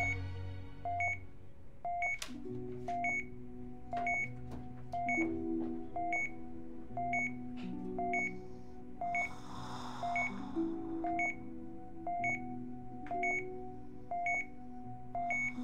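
Hospital patient monitor beeping at a steady, even pace, over soft background music of sustained low chords. A brief hiss swells and fades about two thirds of the way through.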